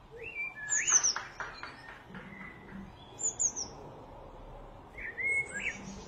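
Small songbirds singing: a phrase of whistled notes that rise and fall, followed by a quick run of short notes, then a few high thin notes about three seconds in, and another whistled phrase near the end.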